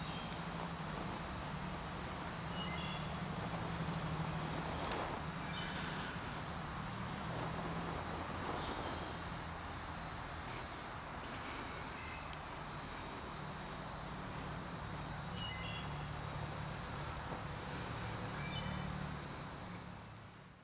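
Outdoor ambience: a steady low hum under an even hiss, with short high chirps now and then, fading out at the very end.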